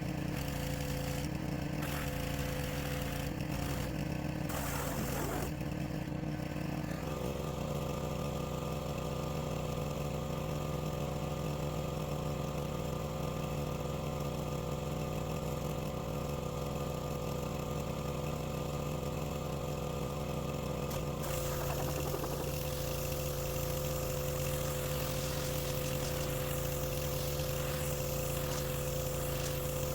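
Pressure washer running steadily, a motor's hum with a constant pitch. Its sound changes about seven seconds in and again around twenty-one seconds, with more hiss before the first change and after the second.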